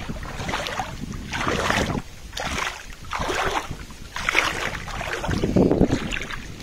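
Someone wading into shallow river water, the water sloshing and splashing in surges about once a second.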